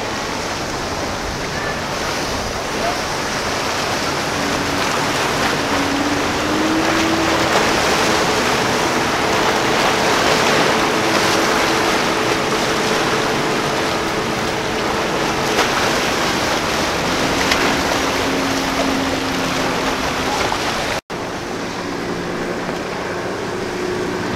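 Wind and surf noise with the steady drone of a motor yacht's engines passing, one tone rising slightly about six seconds in. The sound breaks off for an instant a little before the end.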